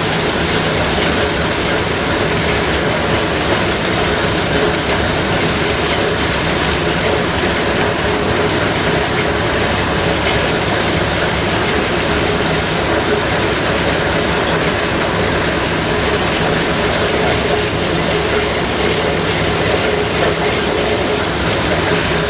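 Gleaner M3 combine harvesting corn: a steady, dense mechanical clatter of its running gears and corn head over a constant engine hum, heard through an open cab window.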